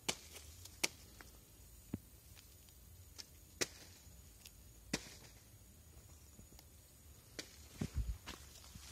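Scattered sharp clicks and taps, one every second or so, with a heavier low thump about eight seconds in: handling noise from the phone being held and moved alongside a power bank and its cable.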